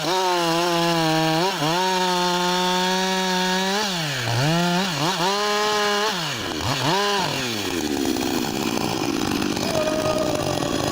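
Two-stroke chainsaw running at high revs. Its pitch dips briefly several times under load and recovers. After about seven seconds the engine note drops away, leaving a rougher, noisier sound.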